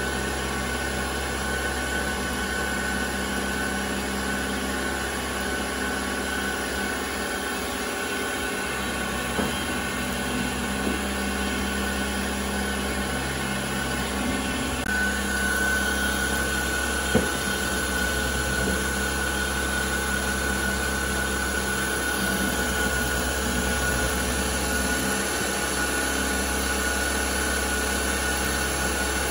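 Little Machine Shop 6500 CNC milling machine running steadily as a small end mill cuts lettering into an aluminium block, a steady high tone over the machining noise that grows stronger about halfway through. One sharp tick sounds a little past halfway.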